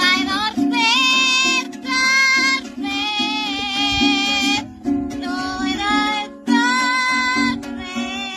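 A parrot singing a high, sliding melody in several long held phrases over ukulele music.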